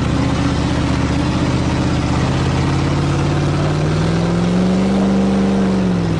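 Pickup truck engines running steadily. About three seconds in, one revs up and holds high for a moment, then drops back near the end.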